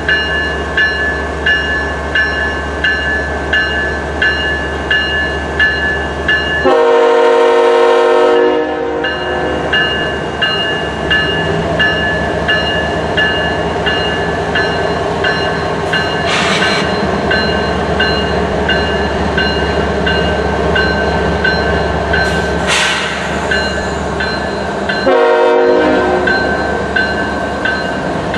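Freight train with GE ES44AC diesel locomotives rolling past, the trailing locomotive's engine running as boxcars follow, wheels clicking evenly over the rails. A locomotive horn sounds twice: a blast of about a second and a half about seven seconds in, and a shorter one near the end.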